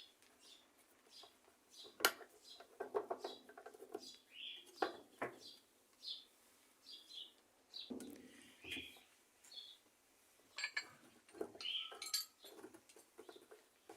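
Scattered light clicks, knocks and clinks of small metal washing-machine parts being handled by hand, as a spring is fitted onto a freshly greased transmission part, with short squeaky sounds in between.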